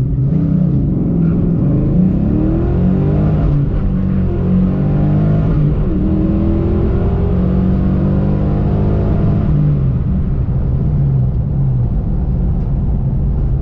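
Fox-body Mustang's V8 at full throttle down the drag strip, heard from inside the cabin. The revs climb and drop back twice as it shifts up through the gears, hold high, then fall away near the end as the driver lifts off after the eighth-mile pass.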